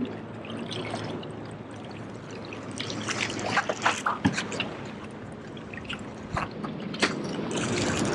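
Small waves lapping and trickling among the rocks at the water's edge, with a handful of sharp clicks about three to four seconds in and one more near seven seconds.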